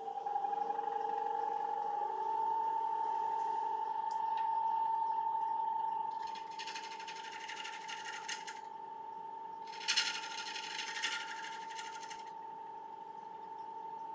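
Wood lathe running with a steady motor whine that climbs slightly in pitch over the first two seconds, as a large yew bowl blank spins between centres. Twice, from about halfway through, a bowl gouge cuts into the outside of the dry yew with a rough, rattling shaving sound lasting about two seconds each time.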